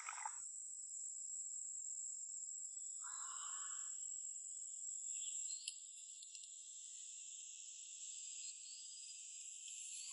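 Steady, high-pitched chorus of insects chirring, with a second, lower-pitched insect chorus joining about halfway through.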